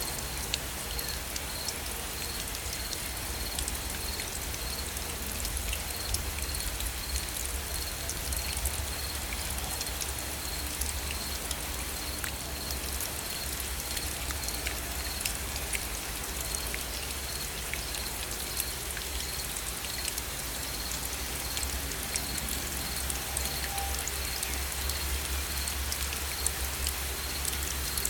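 Steady gentle rain, an even hiss full of fine individual drop ticks, over a constant low rumble. A faint high-pitched chirp repeats at a steady pace throughout.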